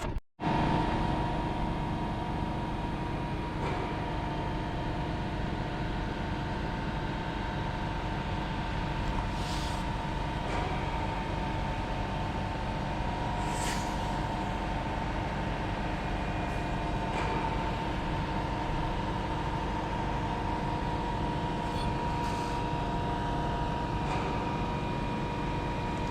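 A machine running steadily with a constant hum of several fixed tones over a low rumble, with a few brief faint hisses or clicks.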